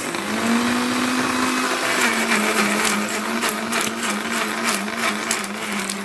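Countertop blender switched on and running, chopping watermelon chunks with rind and seeds and garlic cloves without added water. The motor's hum drops slightly in pitch after about two seconds as it takes the load. Rattling knocks run through the middle of the blend.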